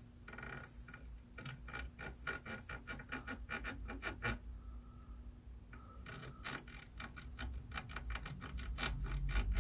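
Rapid scratching and scraping strokes of a hand tool during the repair work, several a second, pausing briefly about halfway through and growing louder near the end.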